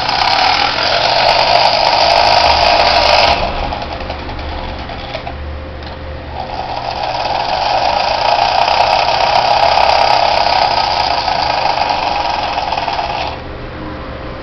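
Small battery-powered motor and gears of a 1990s Glasslite Teenage Mutant Ninja Turtles toy helicopter whirring. The whir is loud for the first three seconds or so, drops quieter, then comes back loud from about six seconds in until near the end.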